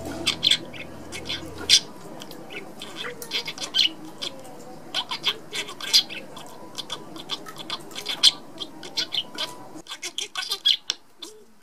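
Budgerigars chirping and chattering: a fast, irregular run of short high chirps and squawks. Background music fades out about two seconds in.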